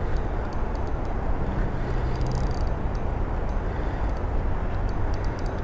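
Wind buffeting the camera microphone in a steady low rumble, with faint irregular ticks from a spinning reel as its handle is cranked.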